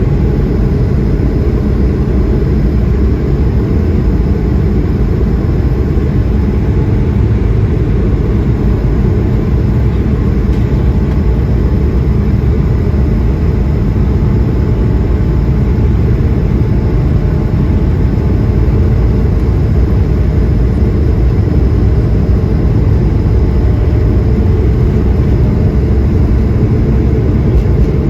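Steady cabin noise inside an Airbus A220-100: the low rumble of its Pratt & Whitney PW1500G geared turbofan engines and airflow, even and unchanging, with a few faint steady tones above it.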